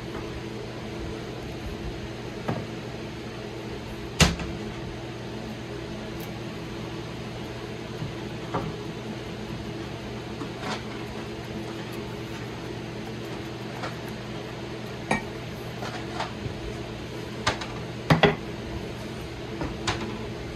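Scattered knocks and clatters as an old double-bit axe, steel head on a wooden handle, is handled on a wooden workbench and laid across a metal vise. The loudest knock is about four seconds in and a quick double knock comes near the end, all over a steady low hum.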